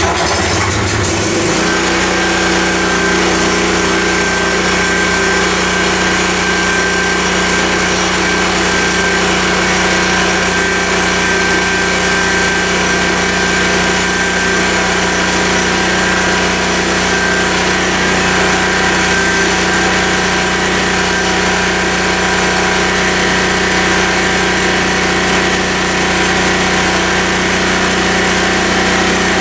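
Portable generator engine running at a steady speed, powering a 220-volt Miller welder; it comes up to its steady pitch within the first second or two.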